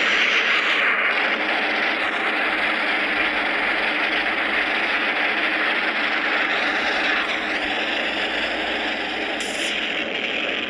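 A custom-made Godzilla sound effect: a loud, steady rushing hiss that starts abruptly and holds unbroken for about ten seconds, with almost no bass.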